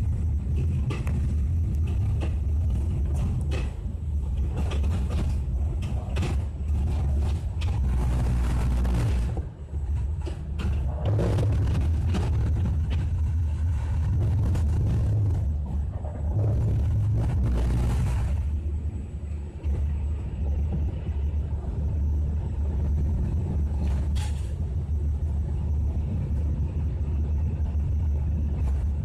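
Passenger train running out of a station yard, heard from its rear car: a steady low rumble of wheels on the rails with frequent clicks and clacks as the wheels cross rail joints and points. The noise swells into a louder rush twice, about a third of the way in and again just past halfway.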